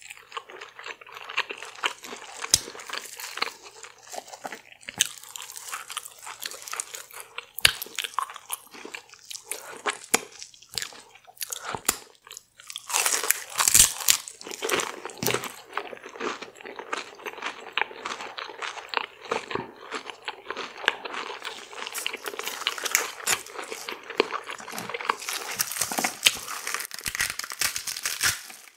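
Close-miked crunchy biting and chewing of deep-fried, Doritos-coated seafood: a dense run of crackles and wet mouth clicks, with a short pause a little before halfway and busier crunching after it.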